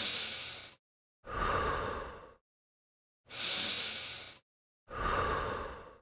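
A man breathing audibly through the mouth in time with push-up repetitions: four breaths about a second each, separated by silence, alternating a sharper in-breath as the body lowers with a fuller out-breath as he pushes up.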